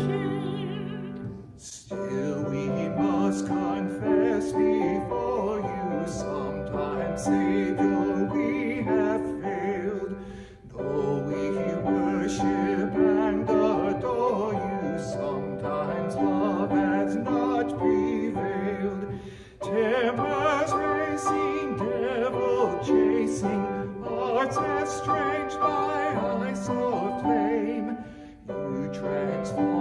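A man and a woman singing a hymn together to grand piano accompaniment, with a brief breath between phrases about every nine seconds.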